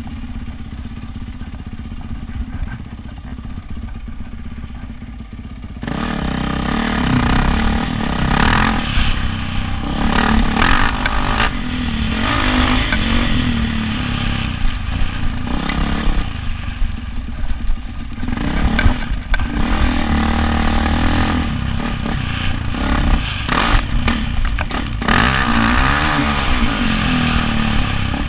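Yamaha YZ450F four-stroke single-cylinder dirt bike engine being ridden. It is quieter for the first six seconds or so, then much louder, revving up and down through the throttle.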